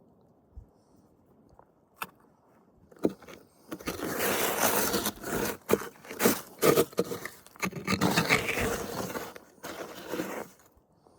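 Irregular scraping and rustling with sharp clicks, starting about three seconds in and stopping shortly before the end.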